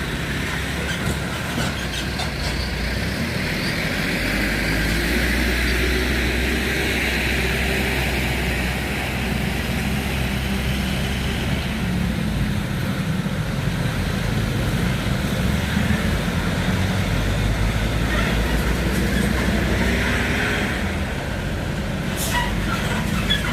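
A train passing over a level crossing: a steady rumble of wheels on the rails with a constant hiss, and a few sharp clicks near the end.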